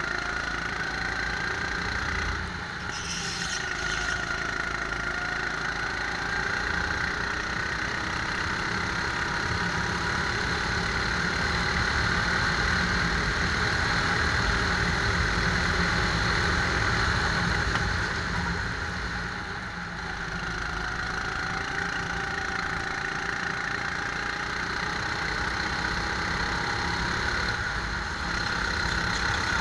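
Rental go-kart engine running under throttle, heard from on board the kart. It drops off briefly about three seconds in and again around twenty seconds, as the kart lifts off for corners, then picks up again.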